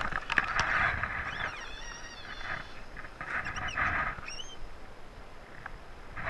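Birds calling: a warbling phrase a little over a second in and several short chirps later, over intermittent bursts of rough noise.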